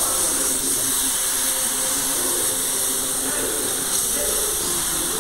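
Milk sizzling with a steady hiss as it is poured into a hot kadai of fried grated carrot.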